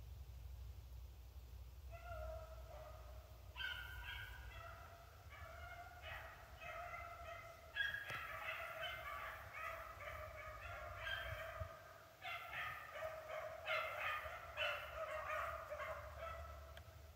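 A pack of rabbit-hunting dogs baying together as they run a swamp rabbit's trail, several voices overlapping. The baying starts about two seconds in, grows fuller a couple of seconds later and dies away near the end.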